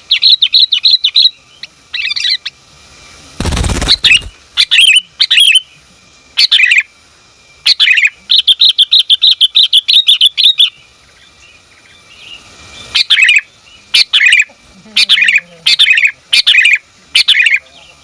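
Sooty-headed bulbul (kutilang), a female calling to males, giving short chirping calls in quick groups, with a run of rapid repeated notes lasting about two seconds starting around eight seconds in. A brief loud burst of noise about three and a half seconds in.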